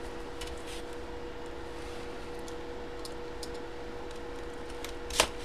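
Cardboard product box handled and its seal sliced open with a blade: faint scrapes and ticks over a steady electrical hum, with one sharp click near the end.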